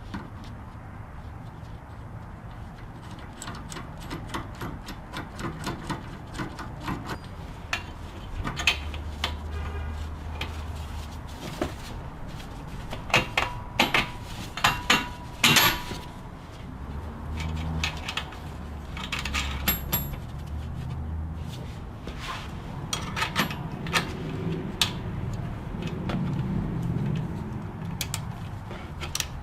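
Hand tools and metal parts clicking and clinking while a new sway bar link is fitted and bolted into a Jeep Grand Cherokee's front suspension, with one louder ringing metal clink about midway.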